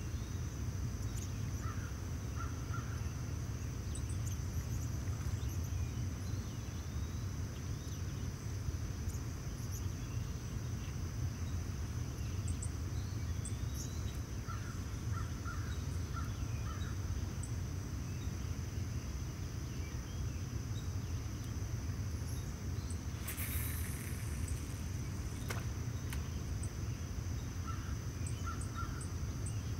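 Outdoor ambience by the water: a steady low rumble under a steady high-pitched whine, with short bird calls in three brief bursts near the start, midway and near the end. A short hiss about three quarters of the way through.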